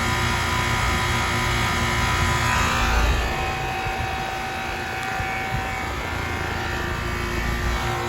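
1993 Inter-City Products 3-ton central air conditioner condensing unit running steadily: the Bristol H25B reciprocating compressor's hum with the condenser fan. The mix of tones shifts about three seconds in.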